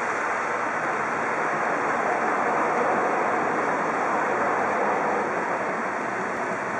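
Steady hiss of traffic tyres on a wet road, swelling a little as a police van drives past and easing near the end.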